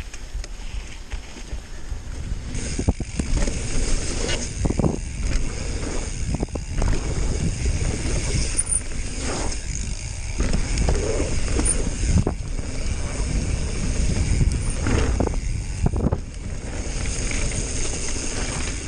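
Mountain bike ridden fast down a dirt trail: continuous tyre rumble and wind on the microphone, with frequent knocks and rattles from the bike over bumps and landings.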